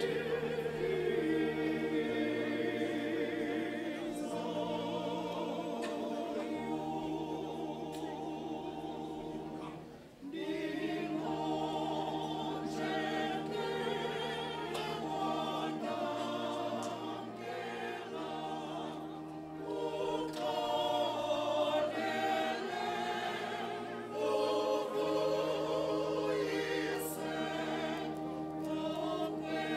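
Choir singing over low held notes that change every few seconds, with a brief break about ten seconds in.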